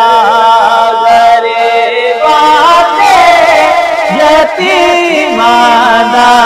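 A man singing a Punjabi naat solo, in long held phrases whose pitch wavers and glides.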